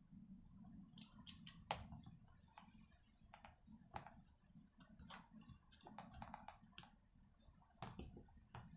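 Faint, irregular clicks and taps of a screwdriver and fingers working against the plastic housing of a brushcutter throttle handle while wires are pressed into a groove.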